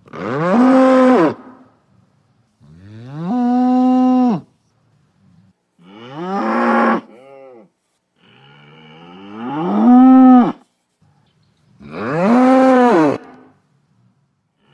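A bull bellowing: five long calls with short silences between, each rising in pitch, holding steady, then dropping away at the end.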